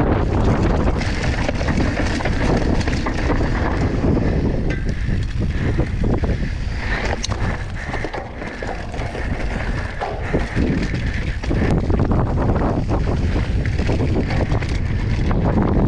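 Heavy wind buffeting the microphone, with a dense low rumble underneath that is typical of moving at speed.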